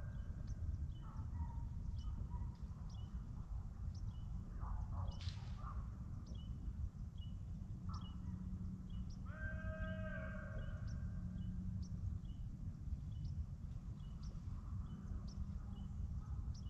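Deer hounds baying as they run a deer: one long drawn-out howl a little past the middle, with shorter calls earlier, over a steady low rumble.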